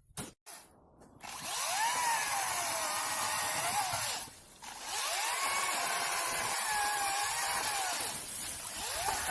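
Makita DUC204Z 18 V cordless electric chainsaw running and cutting wood, its motor pitch dipping and rising under load. It starts about a second in, stops briefly about four seconds in, then starts again and keeps cutting.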